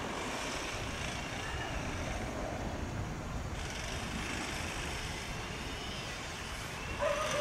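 Steady, distant jet-engine noise from a Dassault Falcon 2000S twin-turbofan business jet landing, heard as an even rumble and hiss without sudden changes.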